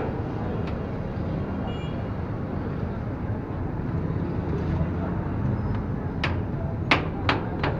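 Busy roadside noise: a steady rumble of traffic, with a few sharp knocks or clicks in the last couple of seconds.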